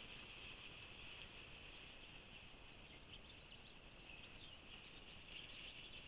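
Faint outdoor ambience: a steady high-pitched chirping chorus, with a few short chirps standing out from about two to five seconds in.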